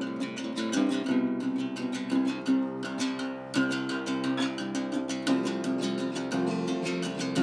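Background music: a guitar played with quick plucked notes and strums, in a steady rhythm.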